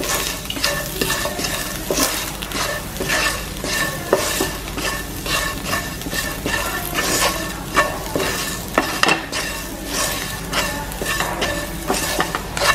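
Wooden spatula scraping and tossing diced boiled potatoes around a nonstick frying pan, with repeated short scrapes over a steady sizzle of frying oil.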